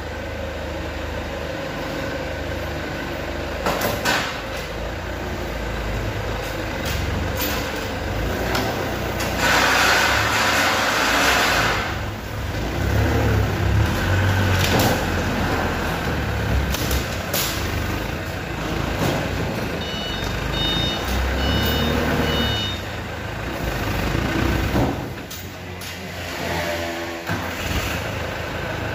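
Forklift engine running under load as it pushes a pallet of timber into a shipping container, with a loud rush of noise lasting about two seconds a third of the way in. About two-thirds of the way through, a reversing alarm beeps about twice a second for a few seconds.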